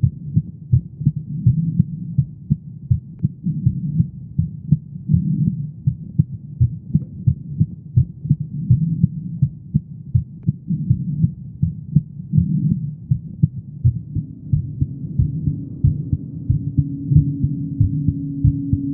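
A woman's heartbeat, a steady run of low, repeating thumps. A steady low hum joins it about two-thirds of the way through.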